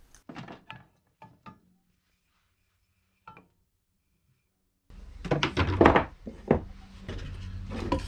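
Wooden workpieces being handled: a few light knocks and clicks as a drilled timber block is lifted off a drill press table, then, after a silent gap, a run of louder wooden knocks and clatters on a workbench over a low steady hum.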